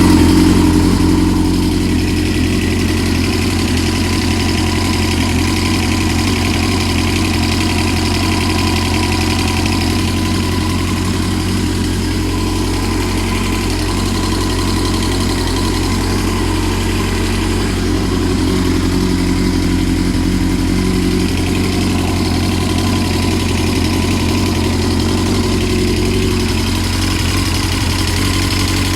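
Dirt bike engine idling steadily with a ticking noise whose cause the owner does not know.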